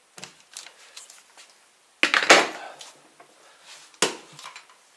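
Short knocks and clatter of tools and a board being handled on a workbench. There are a few light taps first, a loud sharp clatter about two seconds in that dies away over half a second, and another sharp knock about four seconds in.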